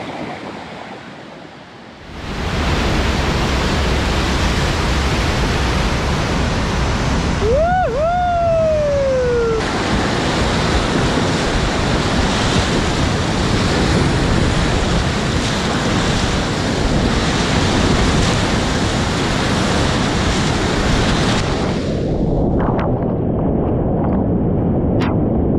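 Steady roar of whitewater rapids rushing around a kayak, heard close up, with a single pitched call that rises and then falls about eight seconds in. Around 22 seconds the rush turns duller, and a few sharp splashes follow near the end.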